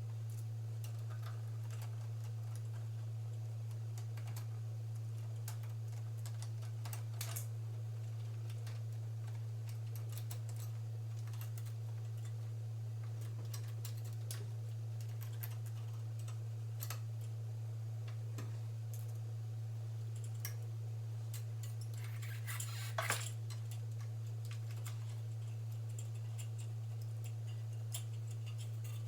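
Scattered light clicks and taps of small metal parts and hand tools being handled while the carburetor's linkage springs and fittings are taken off a Briggs & Stratton engine, with a brief cluster of clatter about three-quarters of the way in. A steady low hum runs underneath.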